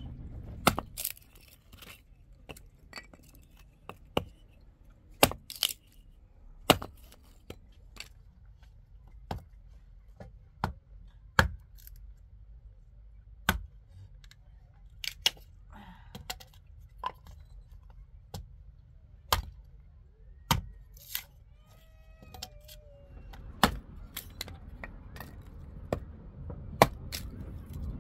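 A hatchet splitting firewood into kindling: irregular sharp knocks of strikes on wood, with cracks as sticks split off.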